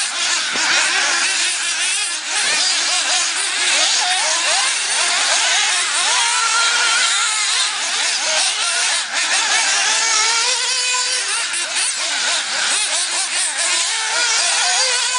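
Several 1/8-scale nitro RC buggy engines racing together, a high buzzing whine that keeps revving up and dropping back as the cars accelerate and brake through the turns, many rising and falling pitches overlapping.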